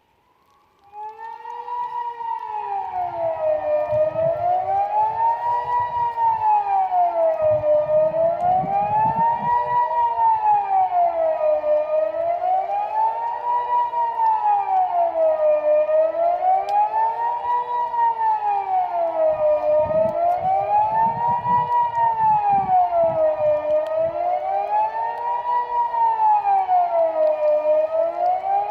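Kockum Sonics Delta 6-AT electronic siren starting up about a second in and sounding the Swiss general alarm ('Allgemeiner Alarm'): a single tone rising and falling steadily, one full sweep about every four seconds.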